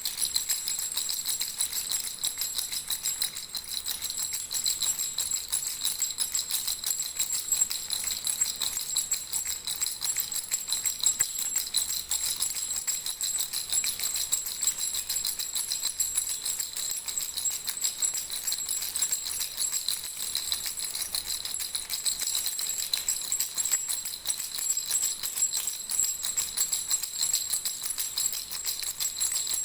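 Baby rattle shaken steadily without pause: a fast, even, high-pitched jingling.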